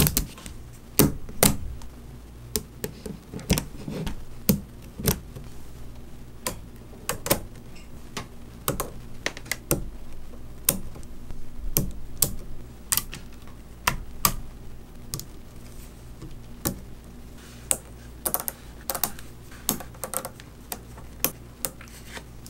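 Small neodymium magnet balls clicking sharply as they snap together and are pressed into place by hand, in irregular clicks from a fraction of a second to about a second apart.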